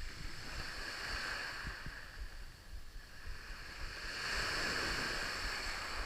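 Waves washing in at the shore, swelling twice, with wind buffeting the microphone.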